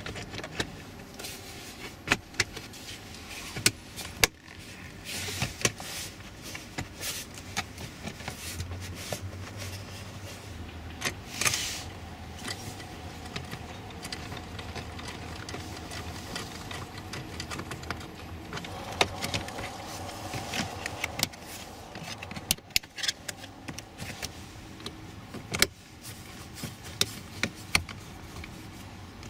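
Plastic dashboard trim and wiring being handled and fitted back in place under the dash of a Toyota RAV4, with many scattered sharp clicks, knocks and rattles over a steady low hum.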